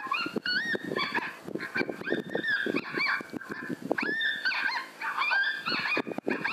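Coyote pup distress sound played on a predator caller: repeated high, whining yelps that rise and bend in pitch, over a rough low crackle. It is being used to draw a wary coyote in closer.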